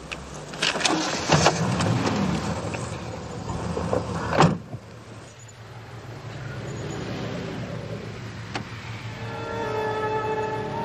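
A car door is worked and then shut with a sharp slam about four seconds in, over a running car engine. The engine then carries on more quietly with street traffic, and music begins to come in near the end.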